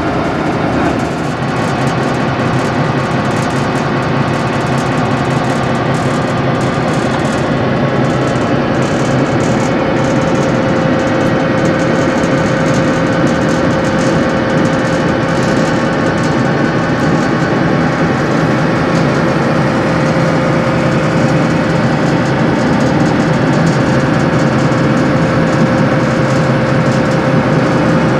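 Loud, steady running of a Dr12 diesel locomotive's engine heard inside the driver's cab, with a constant hum.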